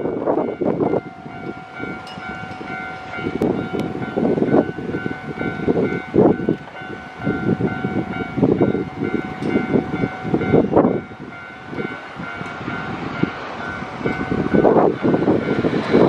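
Japanese railway level-crossing warning bell ringing in a steady, evenly repeating tone over irregular rushes of noise. Near the end a Hankyu 5300 series train begins running through the crossing and its noise grows louder.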